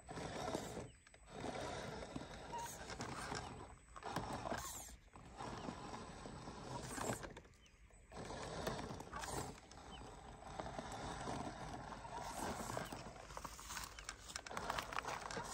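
ZP 1007 scale RC crawler's electric motor and gear drive whirring as it creeps over loose rock, with stones clattering under the tyres. It stops and starts, with short pauses about a second in, around five seconds in and around eight seconds in.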